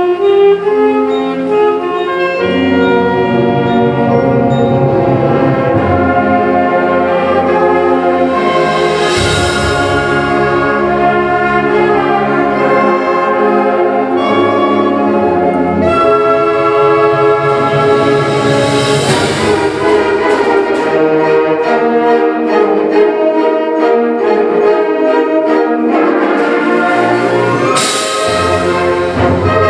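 Junior high school concert band playing a loud, brass-led piece, with crashes about nine, nineteen and twenty-eight seconds in.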